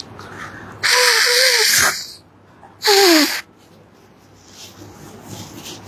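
A person's two loud, sudden bursts of breath close to the microphone, each carrying a falling voiced tone. The first lasts about a second and the second is shorter, like a sneeze or cough.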